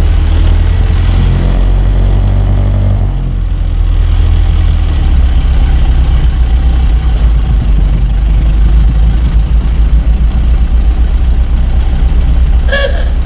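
Ford Model T's four-cylinder engine running as the open car drives along, with heavy wind rumble on the microphone. The engine note changes about three seconds in.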